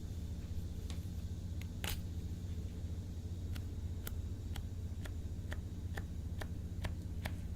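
Slime being pressed and worked by hand, giving sharp little pops and clicks, one a couple of seconds in and then about two a second through the second half, over a steady low hum.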